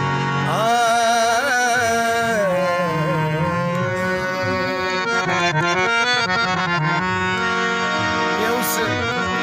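Hand-pumped harmonium playing sustained reed chords while a man sings a sad song over it, his voice sliding and wavering on held notes in the first couple of seconds.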